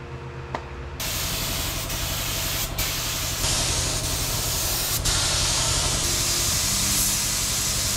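Compressed-air gravity-feed spray gun spraying paint in a steady hiss. It starts about a second in, drops out briefly twice as the trigger is let off, and cuts off near the end.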